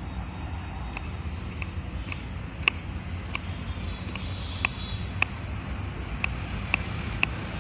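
Kitchen knife chopping cucumber on a wooden cutting board: sharp, irregular taps, roughly one or two a second, over a steady low street rumble.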